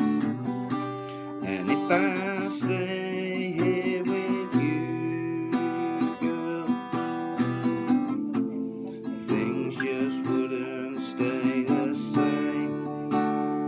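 Instrumental rock music: strummed acoustic guitar under a high, wavering lead melody, with no singing.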